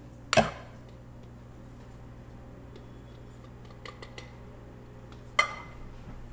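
Kitchenware clinking against a mixing bowl as the rest of the macaron dry ingredients are added to the meringue: two sharp clinks about five seconds apart, the second briefly ringing, with faint light taps between.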